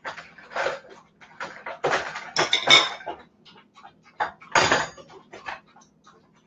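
Metal fork clinking and scraping on a dinner plate while cutting fried green tomato slices, an irregular run of short clicks and scrapes. The loudest come a little before halfway and again about three-quarters of the way through.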